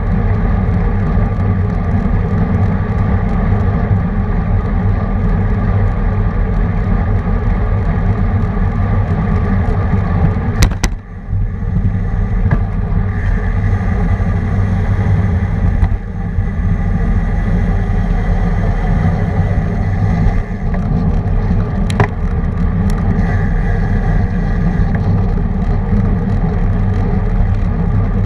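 Loud, steady wind rumble on a bike-mounted camera's microphone, with tyre and road noise, from a road bike riding at race speed in a pack. A sharp click comes about eleven seconds in and another about twenty-two seconds in.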